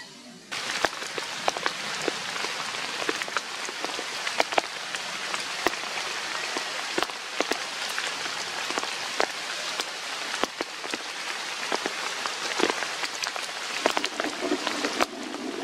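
Rain falling steadily, an even hiss with many sharp drop hits scattered through it, starting about half a second in.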